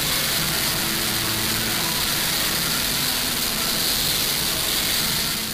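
Steady gym room noise: an even hiss with a faint low hum.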